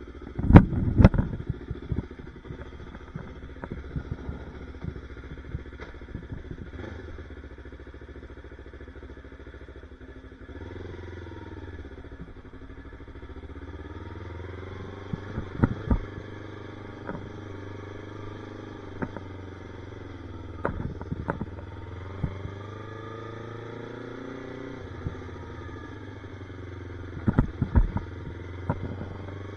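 Yamaha YZF-R3's parallel-twin engine idling, then pulling away at low speed from about ten seconds in, the revs rising and falling through low gears. Several sharp knocks cut in, the loudest near the start and near the end.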